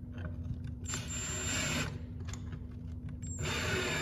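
Two bursts of about a second each from a cordless drill-driver running, each with a thin high whine, as it drives screws that fix small L brackets to a wooden rack.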